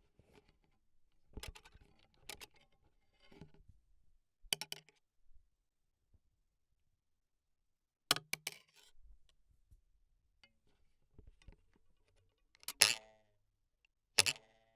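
Foley props such as sticks and wires being struck by hand for cartoon effects: scattered single sharp taps and knocks, a few with a short ringing tail. There is a pause in the middle, and the loudest strikes come near the end.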